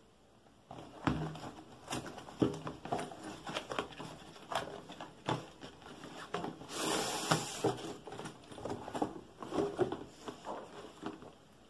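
Cardboard drone box being opened by hand: a run of taps, knocks and rustles from the flaps and packaging. About seven seconds in there is a longer rasping scrape, as the fabric carrying case is slid out of the box.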